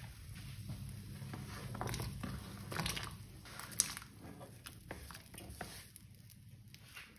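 Water at a rolling boil in a pot, bubbling steadily, while diced potatoes are scraped off a plastic cutting board and dropped into it, giving a run of splashes and scrapes through the middle and a sharp knock about four seconds in.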